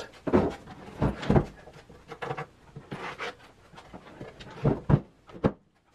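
A homemade plywood belt sander being handled and tilted on its base: irregular wooden knocks and thumps with some rubbing and scraping between them. The loudest knocks come about a second in and again near the end.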